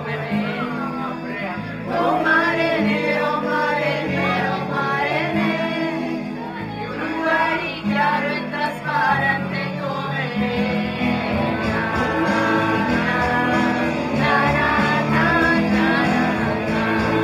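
Live music: an electronic keyboard playing sustained chords while singers sing a melody into microphones, amplified through a PA speaker.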